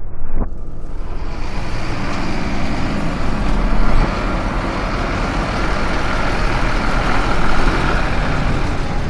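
A heavy truck's engine running steadily.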